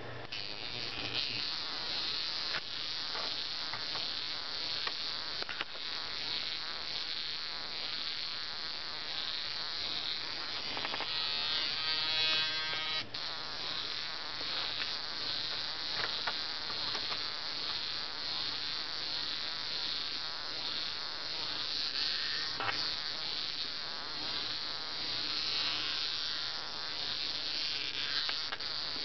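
HEXBUG Nano vibrating micro-robot buzzing steadily as its vibration motor runs, its rubber bristle legs rattling against a hard tabletop. About halfway through it briefly turns to a more pitched, even buzz, which cuts off suddenly.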